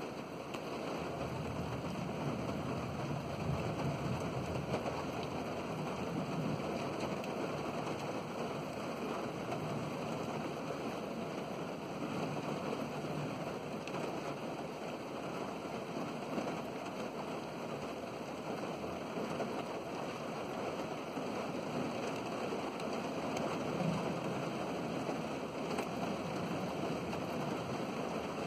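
Steady rain falling during a thunderstorm, an even hiss of rain with no distinct thunderclap.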